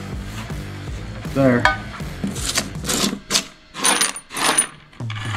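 Straw whisk broom swept across a plywood workbench in several short strokes, about two a second in the second half, brushing off metal shavings from a jigsaw cut.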